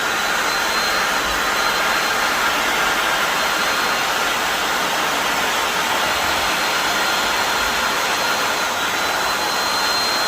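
Electric air blower running steadily while inflating a giant balloon: a steady rush of air with a thin high whine from the motor.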